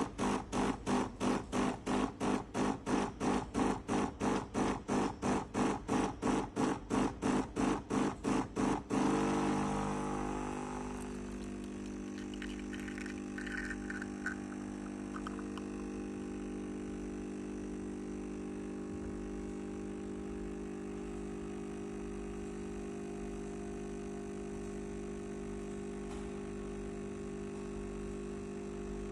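HiBREW H10A espresso machine's vibratory pump pulsing rapidly, about four to five times a second, a pattern typical of pre-infusion. About nine seconds in it changes to a steady hum as it runs continuously to push water through the coffee.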